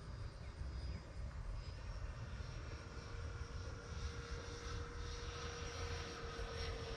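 Distant whine of an E-flite F-16's 70 mm electric ducted fan as the RC jet flies past, a steady tone growing in about three seconds in, over a low rumble of wind on the microphone.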